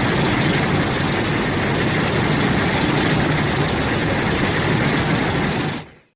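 Kaiju sound effect: a steady, noisy rumble that fades out quickly near the end.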